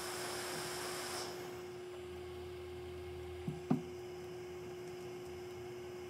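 Hot air rework station blowing with a steady hiss that stops about a second in, leaving a steady hum. Two light taps of metal tweezers on the circuit board come just past halfway.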